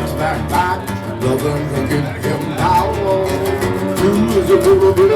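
Music playing: a song with plucked string instruments and a wavering lead melody line.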